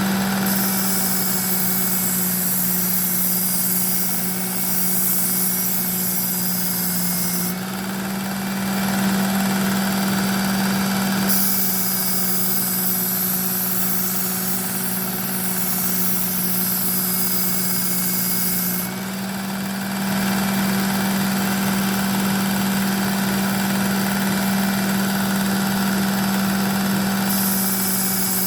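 Work Sharp Ken Onion electric belt sharpener running on its coarse belt with a steady motor hum, while a Shun Damascus knife blade is drawn along the belt. Each grinding pass is a hiss lasting about seven seconds, three passes with short pauses between.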